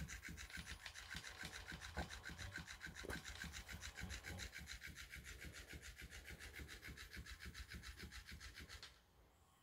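Faint, even, rhythmic rasping of a battery-powered flopping-fish cat toy's motor and tail, several strokes a second, cutting off suddenly near the end.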